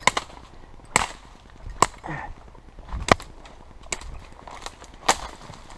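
Sharp woody cracks about once a second as twigs and branches of thick brush are snapped or hacked through, over a low rustle of brush.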